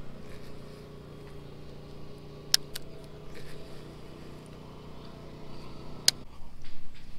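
An engine runs steadily in the background and drops away about six seconds in, with a few sharp clicks: two around two and a half seconds in and one just after six seconds. Louder irregular rustling follows near the end.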